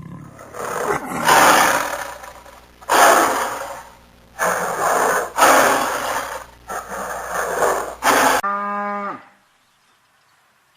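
A big cat roaring, about five loud, rough roars one after another. Near the end comes a short, lower call that falls in pitch, and then it goes quiet.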